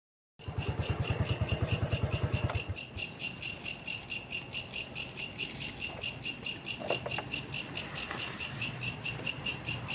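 Night insects chirping in a steady, rapid, evenly pulsing high trill, starting about half a second in. A low pulsing sound runs underneath for the first two and a half seconds.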